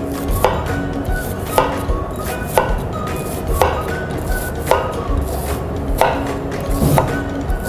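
Chef's knife cutting through an onion and knocking on a plastic cutting board as it is halved and sliced, over soft background music.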